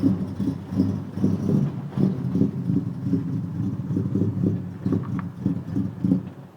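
An engine running with a low, uneven rumble that pulses about three to four times a second.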